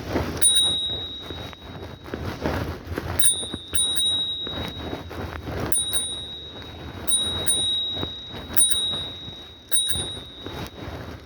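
A bicycle bell is rung about eight times, in single dings and quick pairs, each a bright high ring that fades over about a second. Underneath is a steady low rumble of wind and rolling noise from the ride.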